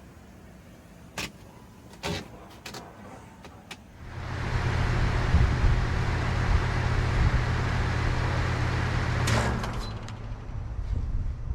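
A 2019 Goodman GSZ14 2.5-ton heat pump outdoor unit running with a steady low hum and fan noise. A click and a drop in level near the end mark the unit shutting down, leaving a weaker hum. Before the unit is heard, there are a few sharp clicks or knocks.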